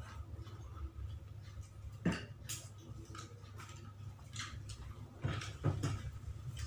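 A man eating with his fingers: chewing and lip smacks heard as scattered small clicks, a sharper click about two seconds in and a few more near the end, over a faint steady low hum.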